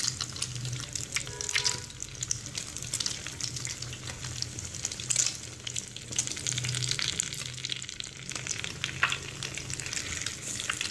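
Hot oil sizzling and crackling around egg-dipped bread slices shallow-frying in a pan, with many small pops and spits, while metal tongs turn the slices over.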